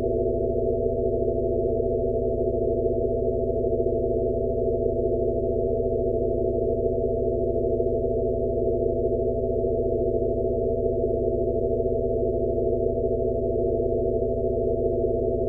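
Synthesized sound-therapy tone track, a Rife-frequency drone for tinnitus relief: several steady held sine tones, all low to mid in pitch, layered over a low hum, with a soft pulse a little more often than once a second.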